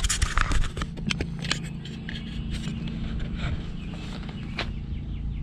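Footsteps crunching on the gravel ballast beside a railway track, thickest in the first second or so, over a steady low rumble.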